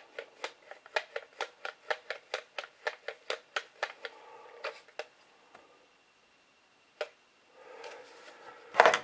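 Quick run of small plastic clicks, about five a second for some four seconds, from a toy-grade drone radio transmitter's controls being worked during calibration. A single click follows near seven seconds.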